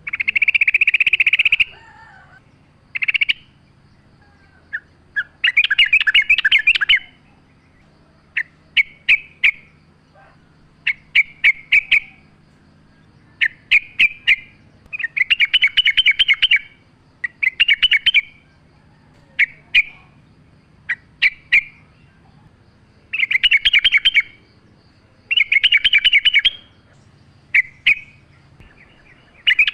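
Yellow-vented bulbul (trucukan) singing. It gives a run of loud, bubbling, warbled phrases, some about a second long and others short, clipped notes, with brief pauses between them.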